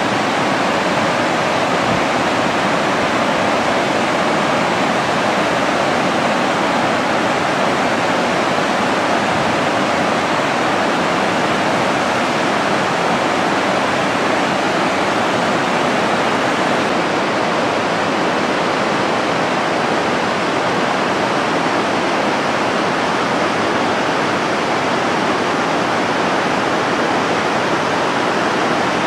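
Waterfall: a loud, steady rush of falling water, unchanging throughout.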